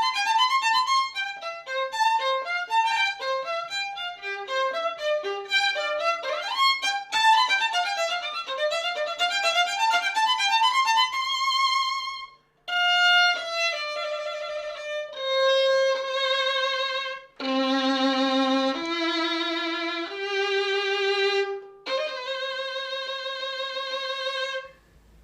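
Violin music. A quick run of short notes for about twelve seconds, then after a brief break a series of long held notes with vibrato, stopping just before the end.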